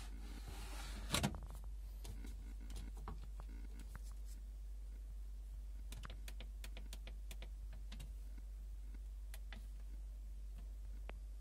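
Detergent drawer of a Bosch Classixx 6 washing machine sliding shut with a sharp knock about a second in, followed by a scattered series of light clicks as its control-panel buttons are pressed to set the programme, over a steady low hum.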